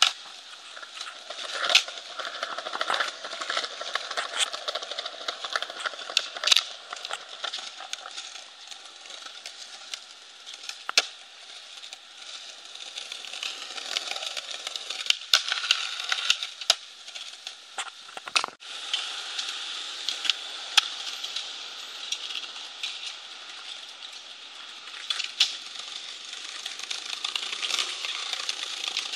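Skateboard wheels rolling and rattling over brick paving, with many sharp clacks of the board's tail popping and landing during flatground tricks.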